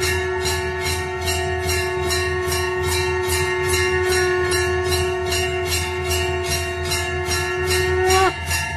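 Background music: one long held melodic note over a steady jingling beat of about three strokes a second. Near the end the note slides down and breaks off, then comes back.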